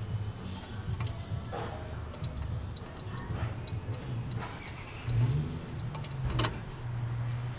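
Scattered light metallic clicks and taps as a braided brake hose and its fitting are handled and a wrench is put on the fitting, over a steady low hum.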